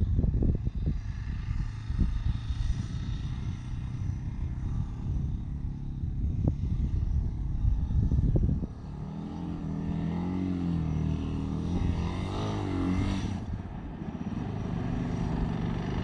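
A motorcycle engine labouring up a deep-sand track, heard from a distance, its revs rising and falling. For roughly the first half, a gusty rumble of wind on the microphone covers it.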